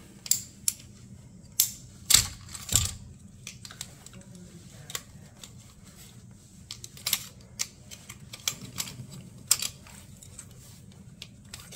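Scattered metal clicks and knocks as steel mounting bracket arms are slid into the mounting band of a PSC blower motor, with a few louder knocks in the first three seconds and lighter ticks after.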